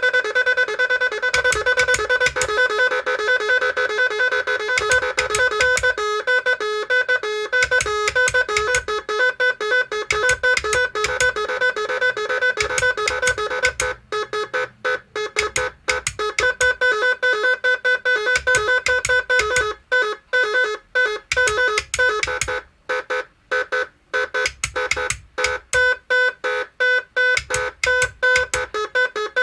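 Magic 18 electronic musical car horn playing its built-in tunes through its pair of horn speakers: a loud, buzzy electronic melody. At first the tones run on unbroken, then from about halfway they break into quick, short stuttering notes.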